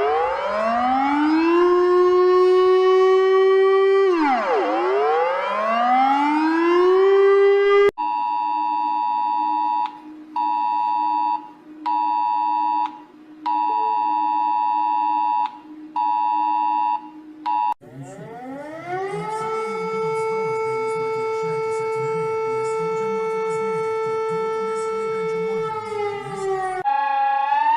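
Emergency alert tones. First come two siren-like glides that rise and then hold a steady pitch. Next is a steady two-note alert tone pulsing on and off in roughly one-second bursts. Last, a tone rises and holds steady for several seconds, and starts to rise again near the end.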